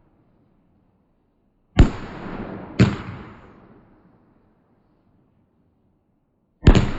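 Fireworks going off with loud bangs: one about two seconds in, another a second later, and a third near the end, each rumbling away afterwards.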